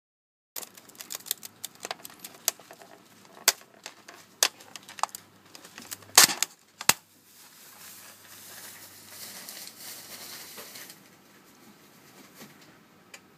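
Clear plastic food pack crackling and clicking as it is handled and pressed shut, with one loud snap about six seconds in. After that a faint steady hiss lasts about three seconds.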